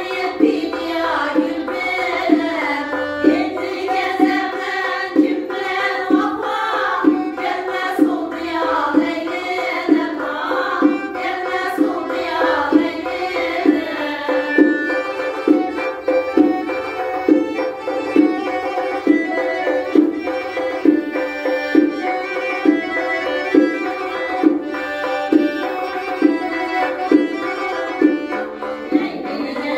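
Uzbek folk music on piano accordion and a doira frame drum keeping a steady beat, with voices singing over it. About halfway through the singing stops and the accordion and drum play on.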